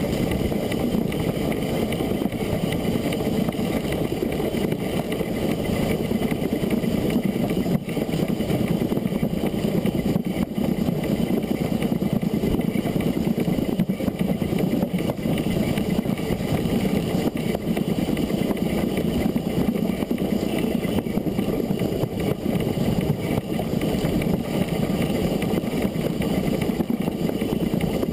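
Narrow-gauge steam locomotive Loch, a Beyer, Peacock 2-4-0 tank engine, running along the line, heard from on board: a steady, continuous rumble of the working engine and its wheels on the rails.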